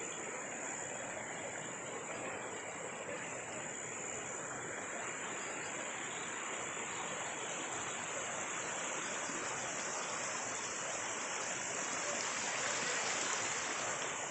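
Steady rushing noise of running water, with a thin, steady high tone above it.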